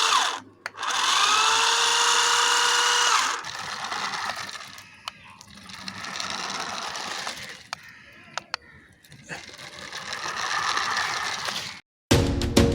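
Small electric motor whirring. It spins up with a rising whine about a second in and runs at full speed for a couple of seconds, then runs on more quietly and unevenly with a few sharp clicks. Music with drums starts near the end.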